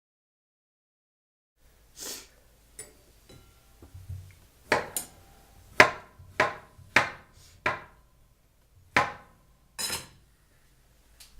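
Kitchen clatter: about ten sharp knocks against a cutting board and bowl, spaced irregularly, several with a short ring, as sliced beets are moved into a bowl of kale.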